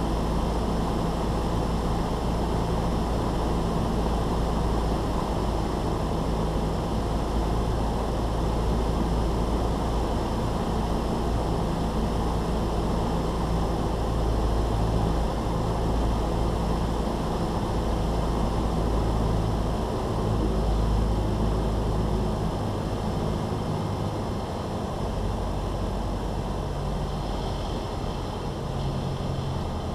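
Cessna 172's piston engine and propeller running steadily at reduced power on landing approach, with a rushing wind noise over it. About three quarters of the way through, the engine note lowers and gets a little quieter as power comes back for the touchdown.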